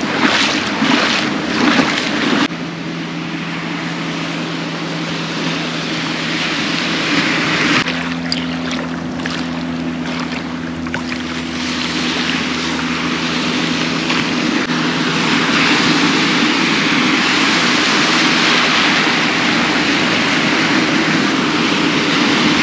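Ocean surf washing in over the shallows, with wind buffeting the microphone, growing louder toward the end. A steady low hum runs underneath for much of it.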